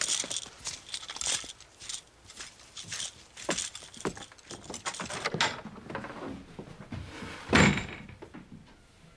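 A run of rattling and clicking knocks, with a sharp crack about five and a half seconds in and a heavy thump about seven and a half seconds in.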